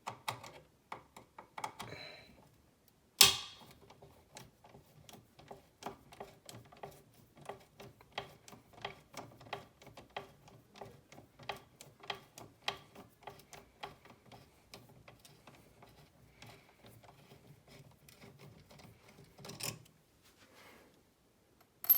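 Long wood screws being turned out of a plastic junction box with a screwdriver: a run of small irregular clicks and creaks for about sixteen seconds, with a sharp knock about three seconds in.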